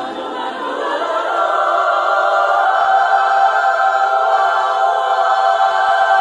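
Women's choir singing a sustained chord, swelling in loudness over the first couple of seconds and then held steady.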